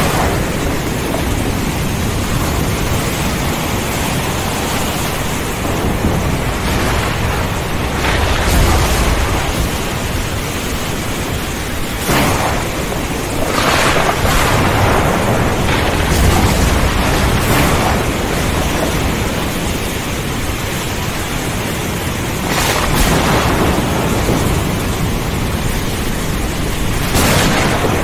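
Thunderstorm: a steady hiss of rain with thunder cracking and rumbling every few seconds, about eight claps in all.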